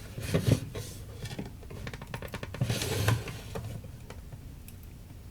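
Irregular knocks, clicks and rattles of a vintage tube radio and its parts being handled on a workbench, with a couple of heavier thumps about half a second in and a quick run of clicks ending in a thump around three seconds in.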